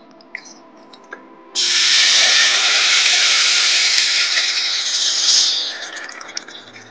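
Water poured into a hot pan of roasted little millet semolina and vegetables, hissing and sizzling as it turns to steam. The hiss starts suddenly about a second and a half in and dies away near the end.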